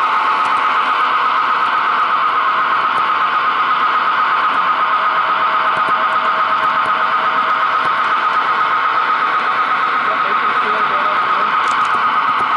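Model train running along its track, heard up close from a camera riding on the train: a steady, loud high-pitched whine.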